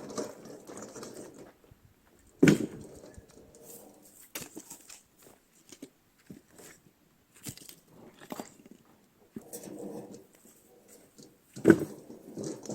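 Axe splitting firewood: two loud, sharp blows about nine seconds apart, with lighter knocks and shuffling of wood pieces between them.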